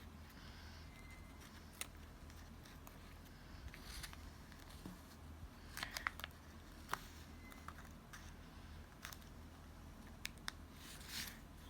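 Quiet desk crafting sounds: scissors snipping and paper being handled. There are scattered sharp clicks, a cluster of them about six seconds in, and a brief brushing rustle near the end, over a steady low hum.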